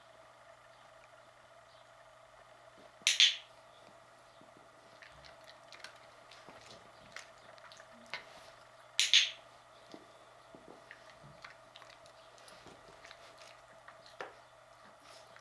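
A training clicker pressed twice, about six seconds apart, each a sharp two-part click, marking the dog for lying correctly in her bed. Faint small ticks in between.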